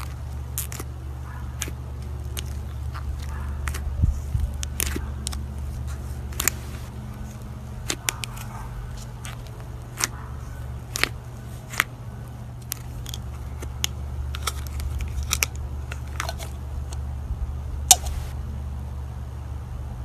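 Slime being squeezed and worked by hand, giving irregular sticky pops and crackling clicks, a few sharper ones standing out, over a steady low hum.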